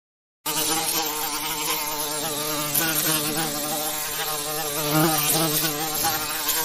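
A bee buzzing steadily in flight, starting suddenly about half a second in, its pitch wavering slightly, with a brief swell in loudness about five seconds in.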